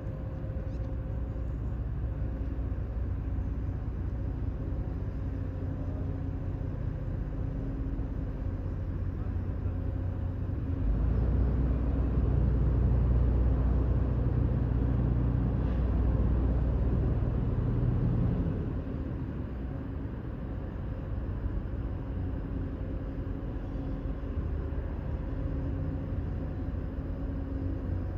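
A heavy engine running steadily, a low hum with a steady pitch. It grows noticeably louder for about seven seconds in the middle, then eases back.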